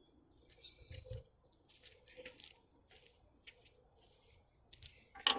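Intermittent scratchy rustling and crunching noises, a few soft ones in the first half and a sharper pair of clicks near the end.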